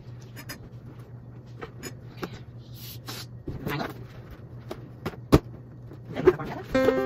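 Scattered light taps and scrapes of things being handled, with one sharp knock about five seconds in, over a steady low hum. Music begins near the end.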